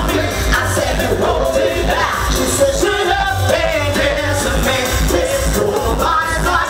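Live pop music: male vocalists singing into handheld microphones over a steady pulsing bass beat.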